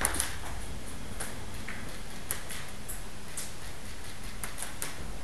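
Scattered light clicks and taps of footsteps and gear as someone moves slowly on a hard floor, over a steady low rumble. Two sharper clicks come right at the start.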